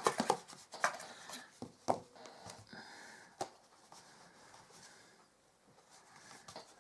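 Cardstock box being pressed and handled by hand: soft paper rubbing and rustling, with a few light taps in the first three or four seconds, then quieter.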